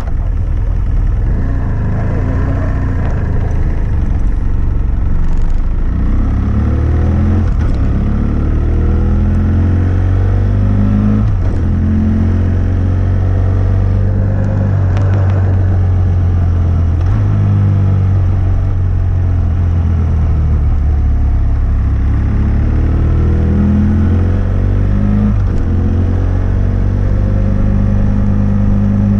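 BMW F800S's 798 cc parallel-twin engine through a GPR Furore Nero aftermarket exhaust with its dB-killer fitted, heard from a bike-mounted microphone while riding. The engine note rises and falls with the throttle, with several breaks in pitch from gear changes.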